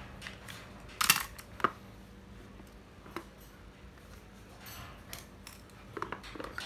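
Handling noise of plastic spinning fishing reels: a few sharp clicks and knocks as one reel is set down and the next is picked up. The loudest cluster comes about a second in, with more clicks near the end.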